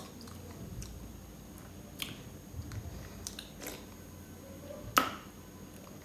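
A person sipping and swallowing carbonated soft drink from an aluminium can: soft mouth clicks and gulps now and then, with one louder click about five seconds in.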